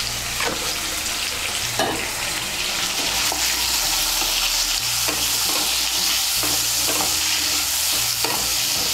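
Potato wedges frying in hot mustard oil in a non-stick kadai, a steady sizzle that grows a little louder a few seconds in. A spatula stirs and turns them, with occasional light scrapes and knocks against the pan.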